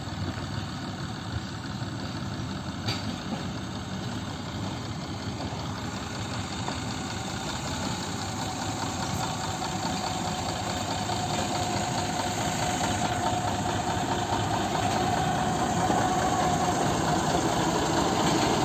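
Small diesel locomotive of a narrow-gauge sugar-cane railway, running as it pulls empty cane wagons toward the listener. It grows steadily louder as it comes closer.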